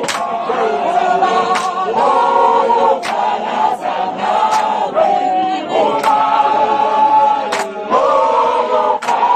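A group of voices singing together in harmony, a choir-like chorus of many singers, with a few sharp clap-like hits cutting through now and then.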